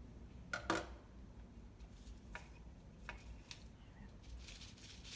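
A few light clicks and taps from dry seed pods and twigs being handled on a table, the loudest a quick double tap near the start, with a faint rustle near the end.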